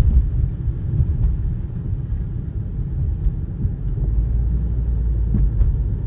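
Steady low rumble of a car's engine and tyres heard inside the cabin while driving on a slushy, snow-covered road. The deepest part of the rumble grows louder about four seconds in.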